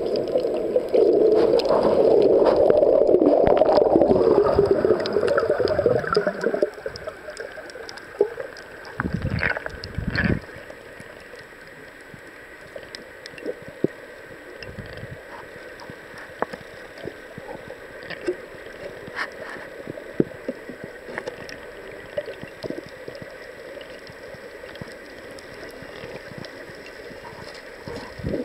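Water noise picked up by an underwater camera: loud gurgling and bubbling for about the first six seconds, then a quieter steady underwater hiss with scattered clicks and two dull thumps around nine to ten seconds in.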